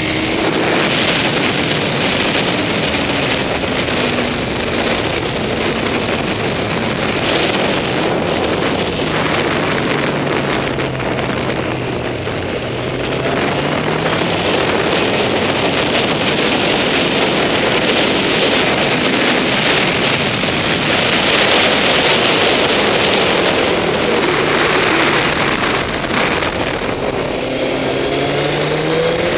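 Honda CBR954RR's inline-four engine running at track speed, heard onboard through heavy wind noise on the microphone. The engine note falls over the first dozen seconds as the bike slows, stays low for a few seconds, and climbs again near the end as it accelerates out of a corner.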